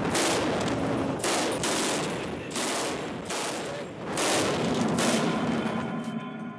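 Small-arms gunfire: about seven sharp reports at uneven intervals, each with a short ringing tail, stopping near the end.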